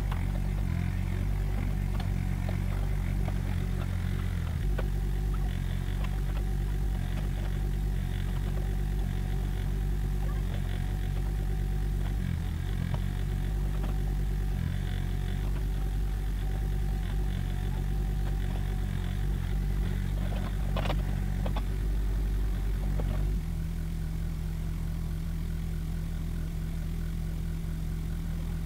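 Mini excavator's diesel engine running steadily under load while it digs, its note changing a few seconds in and again near the end. A couple of sharp knocks come about two-thirds of the way through.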